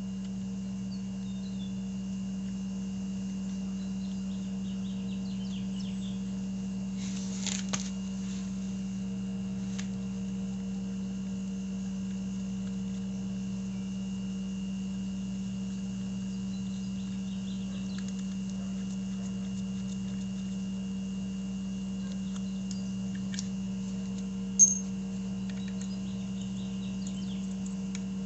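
A steady low hum throughout, with a few light metallic clinks of hand tools and brake parts during a motorcycle front brake pad change: a small cluster about 7 seconds in and a sharper single clink near the end.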